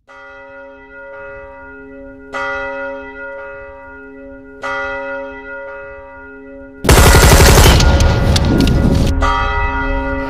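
Three slow, deep bell strikes about two seconds apart, each ringing on and fading, as in a music track's intro. About seven seconds in, a much louder, dense sound full of rapid hits cuts in over the ringing.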